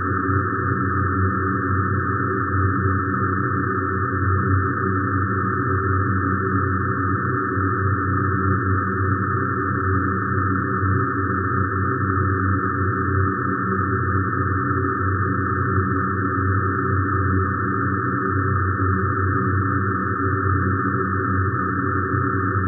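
Many frozen drones of the DIN Is Noise microtonal software synthesizer sounding at once as a steady, unchanging electronic drone: a thick low cluster of held tones with a separate higher band of tones above it.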